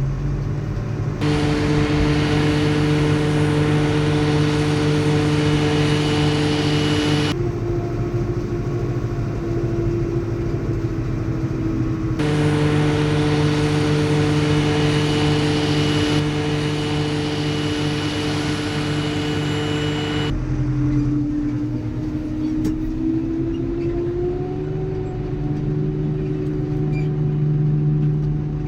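Heavy diesel farm machinery running steadily at working revs, a constant engine drone with a roar of mechanical noise. The sound switches abruptly several times, between louder and quieter machines.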